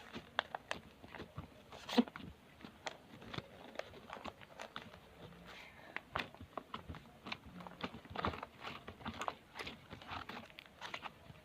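Slime being squeezed and stretched by hand: soft, irregular sticky clicks and small pops, with one sharper pop about two seconds in.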